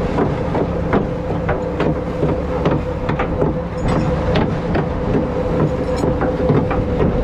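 Fishing boat's engine running with a steady drone, with sharp knocks and rattles two or three times a second over it.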